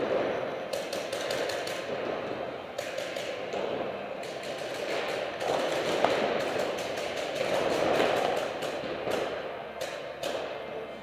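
Paintball markers firing in scattered, irregular sharp pops, several in quick runs, over a steady background hiss.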